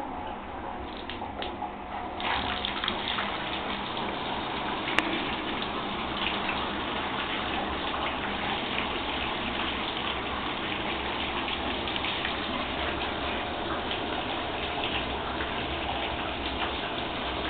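Bathtub tap running, water gushing steadily into the tub, starting about two seconds in. A single sharp click about five seconds in.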